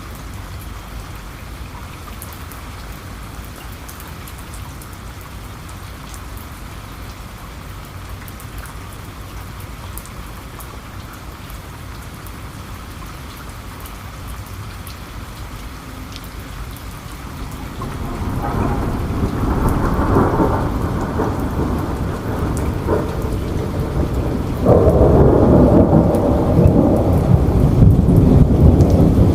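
Steady rain with small drop patter. About two-thirds of the way in, a low rumble of thunder builds and rolls on. It grows louder and deeper for the last few seconds.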